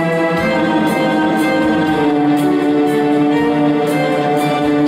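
Yamaha electronic keyboard played with both hands in a string-ensemble voice: held, overlapping chords over a steady low note, with faint regular high ticks of accompaniment percussion about once a second.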